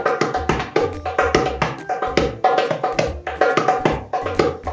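A 9-inch cast-body darbuka with a black Powerbeat mylar head, hand-played in a quick rhythm of sharp strokes with deep low strokes among them. It is tuned to the maker's standard setting.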